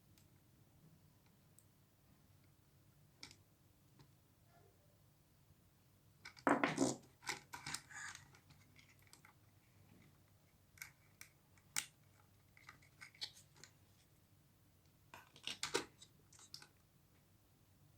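Hands handling small hard objects: scattered clicks and short scraping rustles. There is a dense cluster about six to eight seconds in, a few single sharp clicks a little later, and another burst near the end.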